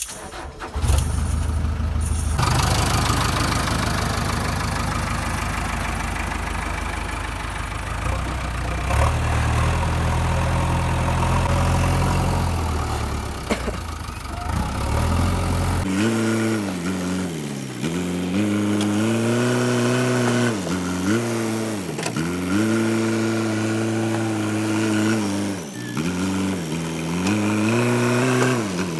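JCB 3DX backhoe loader's four-cylinder diesel engine running: a low rumble for about the first half, then, after a sudden change, a clear engine note whose revs rise and dip again and again every few seconds.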